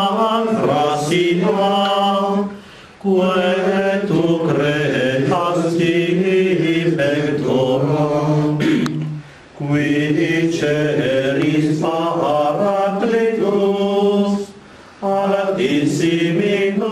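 A group of voices, mostly men's, singing a hymn together from song sheets in long, slow, held phrases. They break off briefly three times between phrases.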